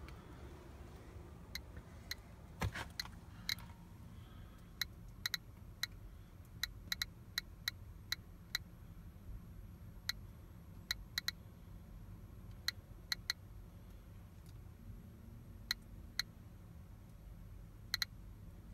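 GQ GMC-300E Plus Geiger counter clicking at random, irregular intervals. Each short click is one detected count of background radiation. There are about thirty clicks, some in quick clusters and others several seconds apart.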